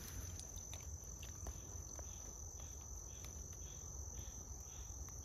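Insects calling in a wetland: a steady high-pitched trill, with a fainter pulsing call repeating about three times a second.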